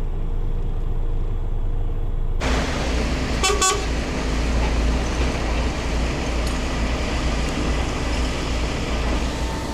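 Heavy truck's diesel engine running steadily, heard from the cab; the sound turns noisier and brighter about two and a half seconds in, and a brief horn-like toot comes about a second later. A steady tone starts near the end.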